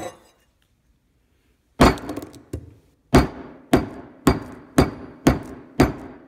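A hand tool strikes an old smartphone with a shattered glass screen. There is one hard hit after a short pause and a lighter tap, then an even run of about seven sharp blows, roughly two a second.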